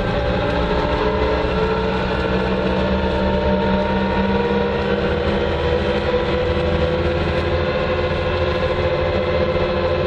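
Bobcat 2410 loader's engine running steadily as the loader travels at road speed, about 20 mph, heard from inside the cab.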